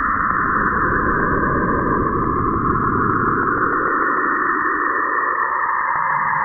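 Saturn's radio emissions converted into sound: a dense, hissing band of noise that slowly rises and falls in pitch, with fast, regular ticking beneath it that fades near the end.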